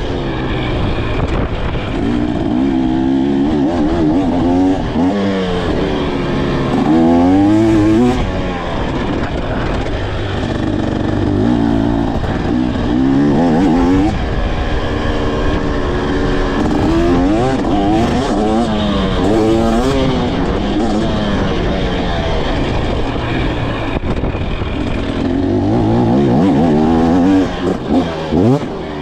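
KTM 300 SX two-stroke dirt bike engine being ridden, its pitch climbing and dropping over and over as the throttle is opened and closed through the gears.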